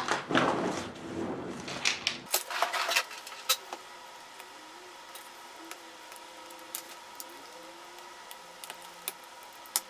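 Small handling sounds as tape is worked off a laptop screen's 30-pin display connector: scratchy scraping for about the first two seconds, then mostly quiet with a few sharp clicks.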